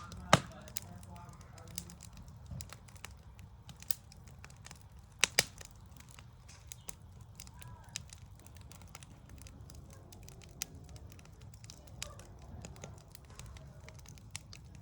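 Campfire crackling: irregular small snaps with a few louder pops, the loudest just after the start and about five seconds in, over a low steady rumble.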